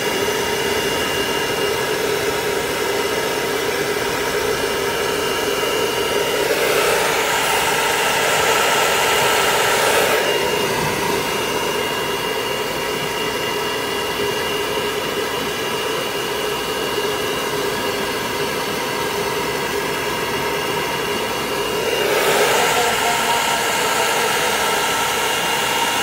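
Electric hair dryer running steadily, blowing over a wet dog's coat: a constant rush of air with a motor whine. Twice, about a quarter of the way in and again near the end, the rush of air grows fuller and louder for a few seconds.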